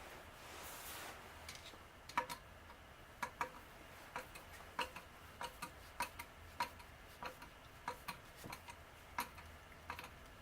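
Irregular sharp clicks, each with a short metallic ring, about one a second, from small metal tools or parts being handled.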